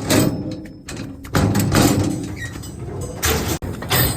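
Loud rattling and banging of metal cattle-handling gates and chute as cows are worked through, in several rough surges.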